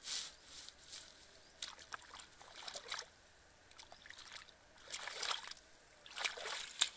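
Bare feet wading through a shallow muddy puddle, each step a short slosh of water, several steps at irregular intervals.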